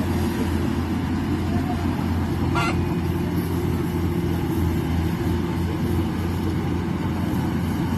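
Rice combine harvester's engine running steadily under load, a constant low drone. About two and a half seconds in there is one brief high-pitched sound.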